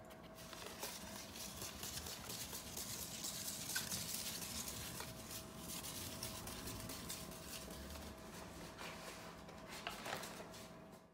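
A paper tiger mask scraping and rustling over a wooden floor as a cat pushes it along with its head, with scattered light taps, over a faint steady hum.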